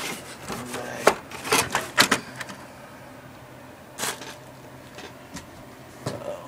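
Handling noise: a cluster of sharp clicks and knocks in the first couple of seconds, then single knocks about four and six seconds in, as the camera and the circuit board in its metal case are moved about.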